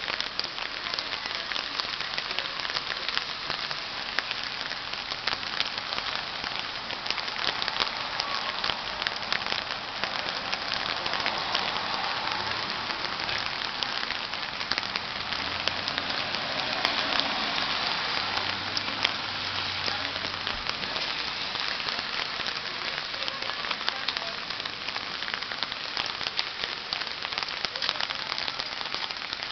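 Steady rain falling, a dense patter of fine drops with a hiss.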